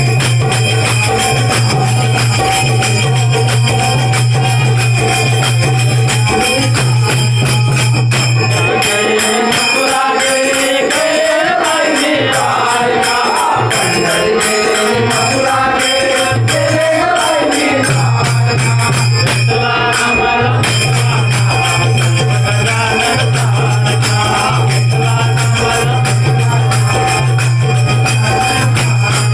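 Marathi bhajan music: dholki drum accompaniment with jingling hand percussion, and a melody rising and falling through the middle stretch.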